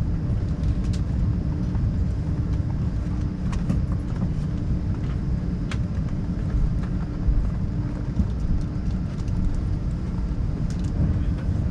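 Cabin noise inside an Airbus A380: a steady low rumble with a faint steady hum, and a few light clicks.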